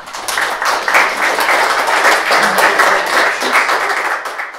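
Audience applauding: many hands clapping in a dense, steady patter that cuts off abruptly at the end.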